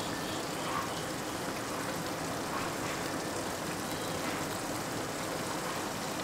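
Minced chicken frying with masala in a wok, a steady sizzle, while a spatula stirs it.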